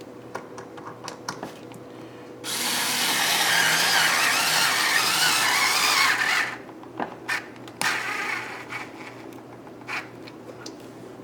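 Power drill-driver running for about four seconds as it drives a wood screw into the pine armrest, turning a bit the user says is worn, then stopping abruptly; a few light clicks of handling follow.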